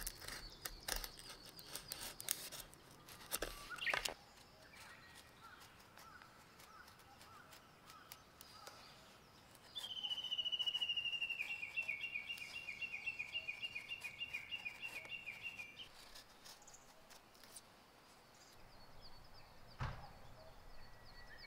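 A knife shaving a thin wooden stick, a run of sharp scraping clicks that stops about four seconds in. About ten seconds in, a bird sings one long rapid trill lasting around six seconds, stepping down slightly in pitch, and a single thump comes near the end.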